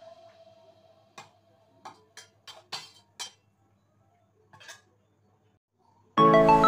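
A metal spoon clicking against a steel bowl while salt is stirred into curd: a quick run of about seven sharp clicks, then one more a little later. Music fades out at the start and comes back in suddenly near the end, louder than the clicks.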